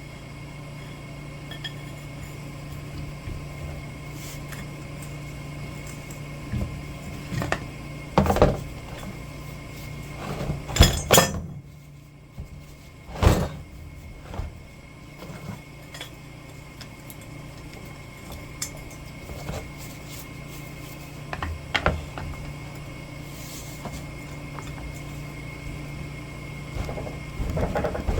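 Scattered metallic clanks and knocks of tools and metal parts being handled, with a cluster of loud ones from about a third of the way through to about halfway and a few more later, over a steady hum.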